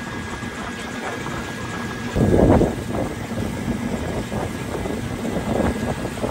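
Harbour Hopper amphibious tour vehicle's engine running steadily as it cruises on the water, with a brief loud rush about two seconds in.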